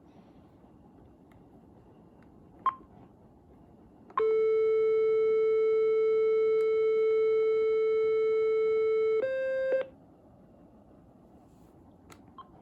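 An AT&T cordless phone beeps once at a key press. About a second and a half later a loud, steady, buzzy electronic tone sounds for about five seconds, steps up briefly in pitch and cuts off. A couple of small key clicks follow near the end.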